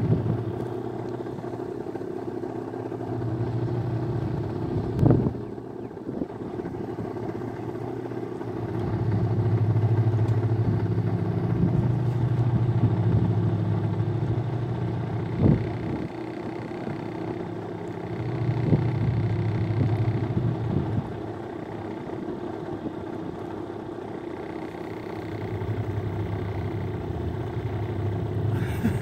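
Low engine drone from a large ship passing in the channel, swelling and fading, with two sharp knocks about five and fifteen seconds in.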